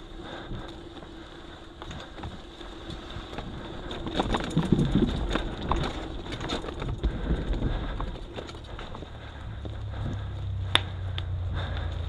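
Mountain bike being ridden over rough ground: wind on the microphone, with the bike rattling and knocking over bumps, busiest and loudest about four to eight seconds in, and one sharp click near the end.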